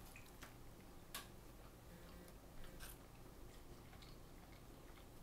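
Near silence: room tone with a few faint, short clicks, the small mouth and hand sounds of a slice of pizza being bitten and chewed.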